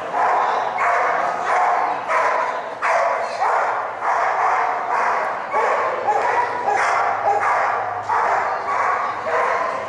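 Australian shepherd barking over and over during an agility run, about two barks a second without a break.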